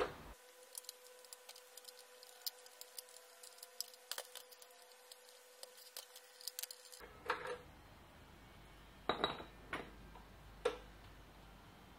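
Small hand tools and metal parts being worked and handled on a workbench: rapid light clicks over a faint steady hum for the first several seconds, then a few sharper separate taps.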